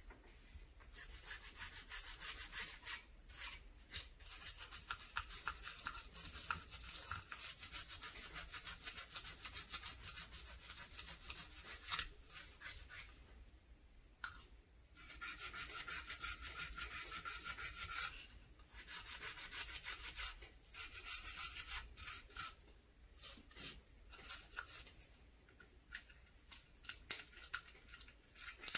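Nylon cleaning brush scrubbing the polymer frame of a Springfield XD9 pistol, loosening dirt: quick scratchy back-and-forth strokes in spells with short pauses, growing sparser near the end.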